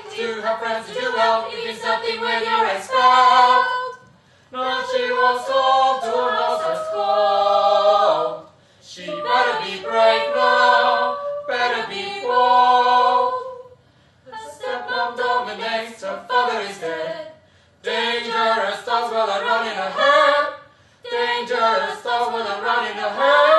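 A small a cappella vocal group singing in harmony, several voices together, in phrases of about three to five seconds separated by brief breaths.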